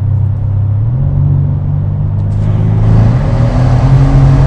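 Mercedes-AMG C63 Estate's 4-litre twin-turbo V8 under acceleration, its note climbing in a step about a second in and again about three seconds in, growing louder, with the echo of a road tunnel.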